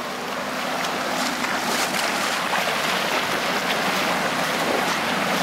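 Muddy water churning and splashing as a Mitsubishi Montero drags a wooden plank leveller through a flooded field, with the SUV's 3.2-litre turbodiesel running under it. A steady rushing noise that grows slightly louder.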